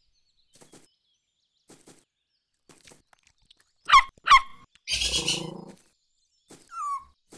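Cartoon animal sound effects: faint ticks, then two short, sharp squeaks falling in pitch about four seconds in, a brief noisy burst about a second later, and a short falling whine near the end.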